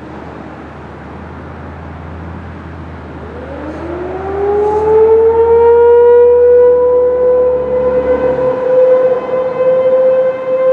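ASC T-128 outdoor warning siren sounding for a scheduled test: about three seconds in it winds up, its pitch rising quickly and then levelling off into one steady tone with several overtones, and its loudness swells and dips in the later seconds. A low rumble lies underneath until about eight and a half seconds.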